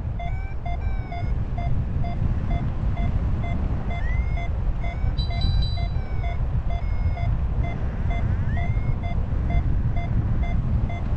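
Paragliding variometer beeping steadily, about three short beeps a second, over heavy wind rush on the microphone from the airflow in flight; the beeping tone signals that the glider is climbing. A couple of short rising whistles sound about four and eight seconds in.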